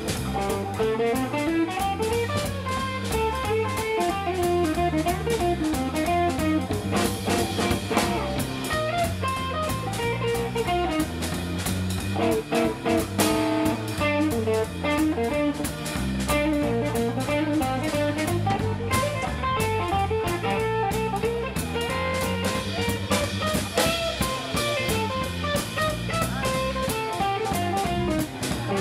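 Live blues trio of electric guitar, electric bass and drum kit playing an instrumental jam.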